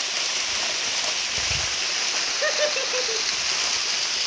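Small waterfall pouring down a rock face and splashing into a shallow, stony pool: a steady rush of falling water.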